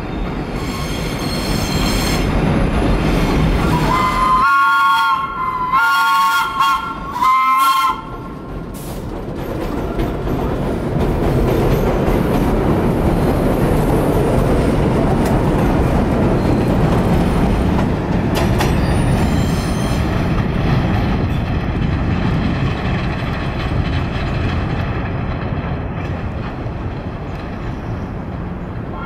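New York City subway train sounding a two-tone horn in about four short blasts, then running on with a steady rumble and rattle of wheels on rail that eases off near the end.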